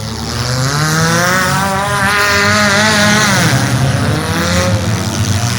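Demolition derby car engines revving hard: the pitch climbs over the first two seconds, holds, then drops back about three and a half seconds in, over the low rumble of other engines idling.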